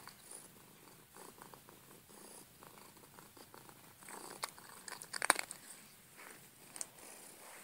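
Tabby cat purring close to the microphone, with a few sharp clicks a little past the middle, the loudest about five seconds in.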